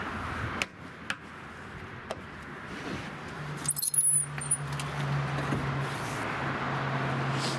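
Handling noise from a boat's live well lid latch and hinged seat: a few sharp clicks, then a short clatter with a brief high squeak about four seconds in. A steady low hum runs under the second half.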